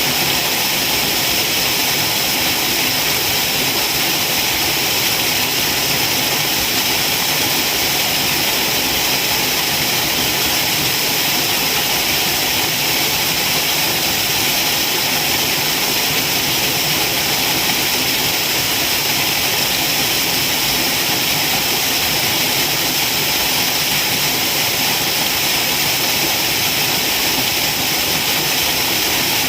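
Waterfall: a steady, unbroken rush of falling water, heavy in hiss, without change throughout.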